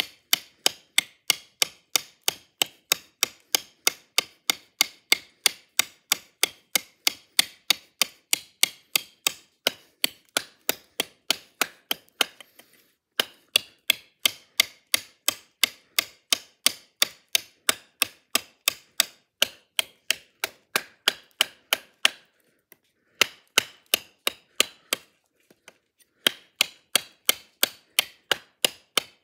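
Spyderco high impact ceramic Mule Team blade, used bare without a handle, chopping into a piece of hard wood: quick, even blows about three a second, broken by a few short pauses.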